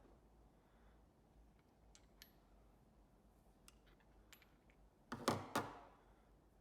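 Faint clicks of pump valve parts being handled, then two sharp knocks in quick succession a little over five seconds in.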